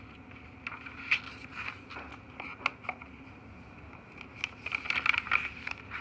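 Paper pages of a handmade junk journal being handled and turned: scattered light rustles and taps, with a flurry of rustling about five seconds in as a page is turned over.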